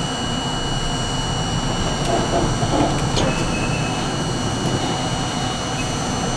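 R42 subway train rolling slowly along the track: a steady rumble of wheels and running gear with a few light clicks, and a faint steady high whine.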